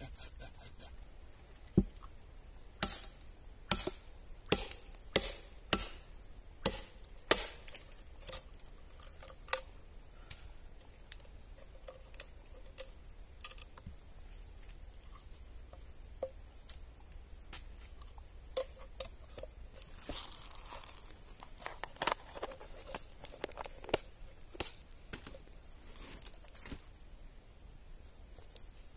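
Machete chopping at bamboo: a run of sharp, separate strikes about one to two a second, then quieter scattered knocks and a short rustle.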